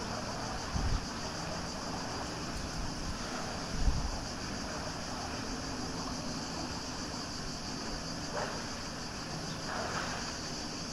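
Steady wind noise on the microphone, with two stronger gusts in the first four seconds, and faint splashes of a man swimming in the pool near the end.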